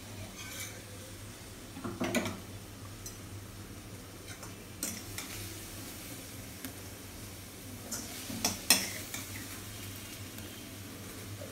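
Metal spoon scraping and knocking against a stainless steel bowl while idli batter is stirred and sautéed vegetables are tipped into it. A few sharp clinks stand out, about two seconds in and twice more around eight to nine seconds.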